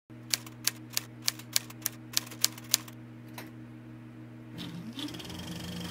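A run of nine sharp, evenly spaced clicks, about three a second, over a steady low hum. The clicks stop about three seconds in, and near the end the hum gives way to a short rising glide.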